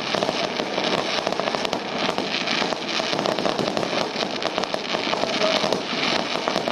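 Fireworks going off: a dense, continuous crackling and popping of many small reports with no single big bang.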